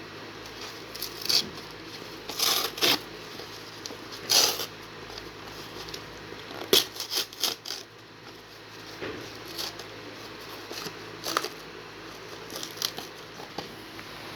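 Hands handling a Blu-ray case and its packaging: scattered clicks, taps and short rustles at irregular intervals, over a steady low hum.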